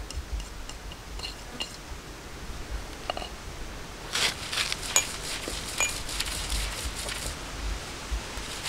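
A few light clicks, then from about four seconds in a dense run of scraping and crunching as a stone roller is worked back and forth over grated coconut, garlic, chilli and cumin on a flat grinding stone.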